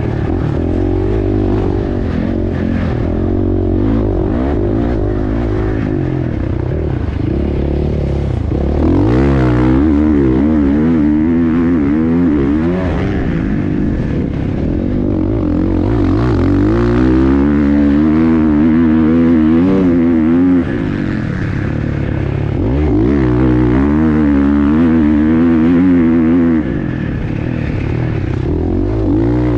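Motocross bike engine revving as it is ridden hard on a sand track, its pitch climbing and dropping again and again as the throttle opens and closes through the gears.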